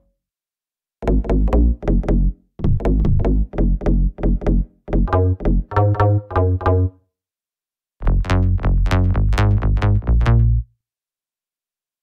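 Synth bass presets from the Tropical House 4 expansion for the reFX Nexus 4 software synthesizer, playing quick, short, repeated notes with a heavy low end. The notes come in phrases of one to two seconds with short gaps between them, and stop a little before the end.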